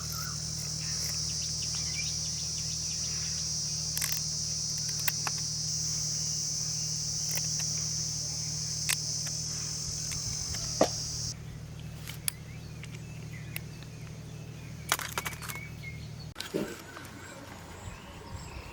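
Steady high-pitched buzz of insects over a low hum, with scattered clicks and taps. The insect buzz cuts off suddenly about eleven seconds in, and the hum stops about five seconds later.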